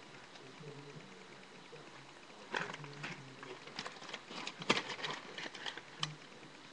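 Close-up eating sounds: a run of irregular crunches and clicks starting about two and a half seconds in.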